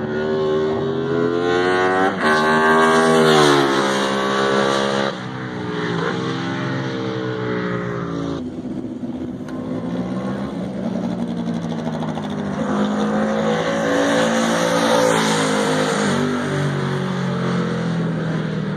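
Britten V1000 racing motorcycle's V-twin engine at high revs as it approaches and flies past, the pitch climbing and then dropping away several times with gear changes. It is loudest about three to four seconds in and again around fourteen to fifteen seconds in.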